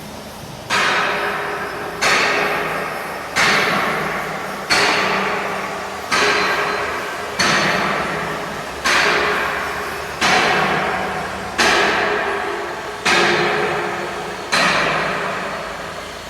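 Drilling rig working with a regular heavy strike about every second and a half, eleven in all, each ringing and fading before the next, over a steady machine hum.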